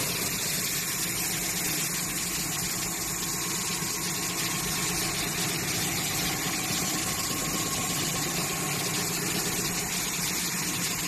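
B-R-RP1300 planer sanding machine running steadily: a constant low machine hum with a faint whine and a high hiss.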